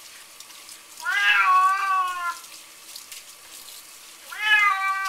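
Domestic cat meowing twice while being rinsed under a kitchen tap: two long, drawn-out meows, one about a second in and another starting near the end, with the tap running into the sink in between.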